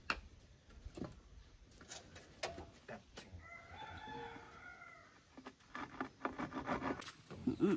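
A rooster crows once, one long call about halfway through, among scattered sharp knocks and taps from hand carpentry on wooden poles and planks, with a cluster of knocks near the end.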